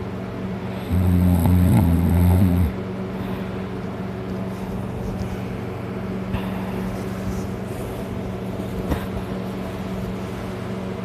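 One loud, rasping snore about a second in, lasting under two seconds, from a man sleeping on his back after heavy drinking. A steady low hum runs underneath.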